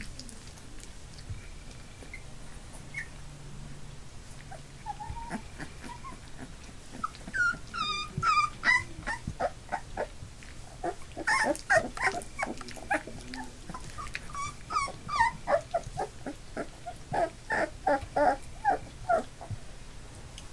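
Nearly three-week-old Labrador puppies whimpering and crying: a few faint whines at first, then from about seven seconds in a run of many short, high cries, several a second, dying down near the end.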